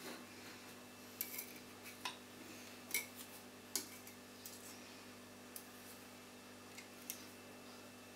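Table knife cutting air dry clay around the rim of an upturned ceramic mug: faint, scattered clicks as the blade knocks against the mug and the board.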